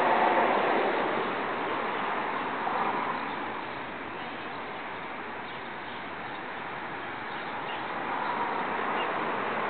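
Steady background hiss with no distinct events, louder near the start, dipping in the middle and swelling again near the end.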